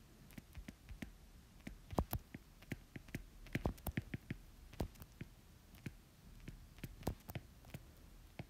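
Stylus nib tapping and clicking on an iPad's glass screen during handwriting: faint, irregular clicks several times a second.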